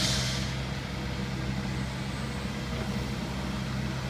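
Liebherr 924 material handler's diesel engine running with a steady low hum as its boom and shear are raised. A brief hiss comes right at the start.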